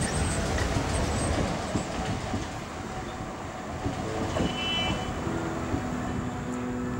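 A train passing close by, its carriages rumbling along the track, then easing to a lower steady noise after two or three seconds. A few short held tones sound in the second half.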